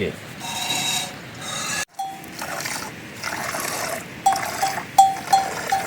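Cowbell on grazing livestock clanking in an even rhythm from about four seconds in, roughly four strikes a second. Before that there is a rough rubbing sound, which cuts off suddenly about two seconds in.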